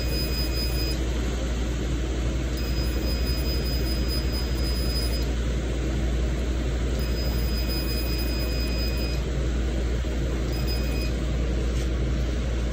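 Laser mole-removal machine running with a steady low hum and hiss, its electronic tone sounding four times for one to two and a half seconds at a stretch while the tip works on the mole, as a laser does while firing.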